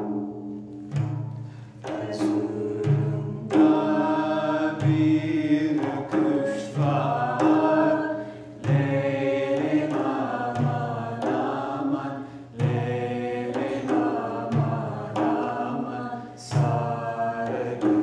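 Turkish folk song sung over frame drums: a melodic vocal line with a deep drum stroke about every two seconds and lighter taps between.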